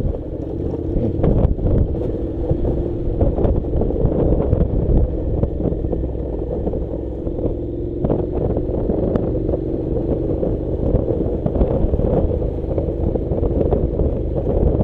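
Honda NC700's parallel-twin engine running steadily at low speed while the motorcycle rides over loose gravel, with scattered clicks of stones under the tyres and wind rumbling on the microphone.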